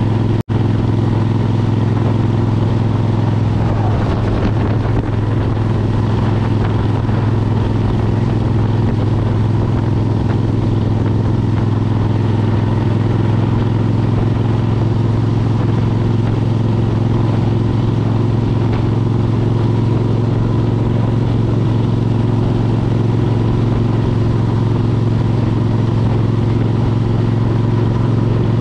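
2003 Suzuki Intruder 1400's V-twin running steadily through a Vance & Hines Classic exhaust while cruising at an even speed. The sound cuts out for an instant about half a second in.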